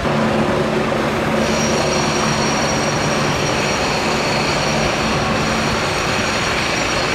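Helicopter flying overhead: a steady, dense rotor and engine noise, with a high whine joining about a second and a half in.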